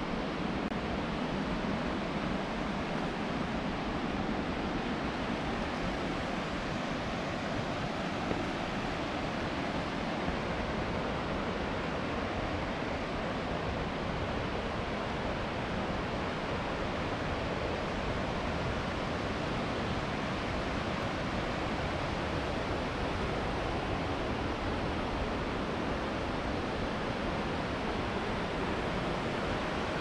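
Rushing water: a steady, even rush with no breaks or rhythm.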